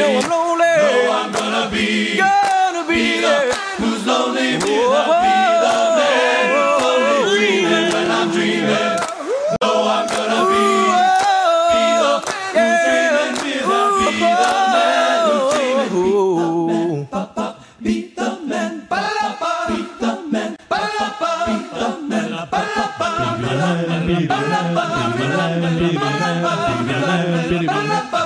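An a cappella vocal group singing in harmony, with no instruments. About two-thirds of the way through it thins out to short, clipped notes, then the full harmony comes back over a low bass voice.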